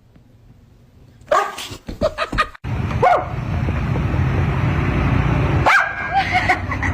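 Dog barking in short bursts, starting about a second in and again near the end, with a loud steady rushing noise between the two bouts.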